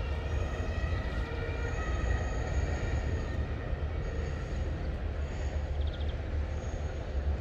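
Low uneven rumble of wind buffeting the microphone over a steady outdoor hiss, with faint high whistling tones now and then.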